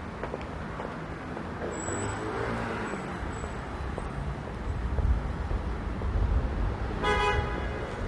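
Street traffic rumbling, with one short car-horn toot about seven seconds in.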